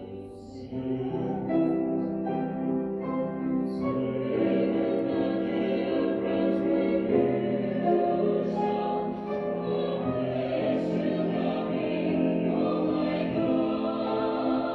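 Mixed vocal quartet of two women and two men singing a slow sacred song in four-part harmony, with long held chords. The voices come in about a second in and continue without a break.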